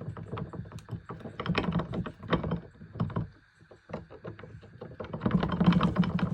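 Rapid clicking and clattering of metal tools and parts being handled, busiest about a second and a half in and again, loudest, near the end.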